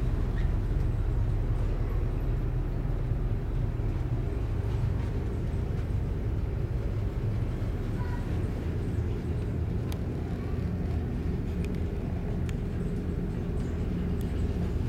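Steady low drone of a car ferry's engines and machinery heard inside the ship, a hum with several held tones, and a few faint clicks now and then.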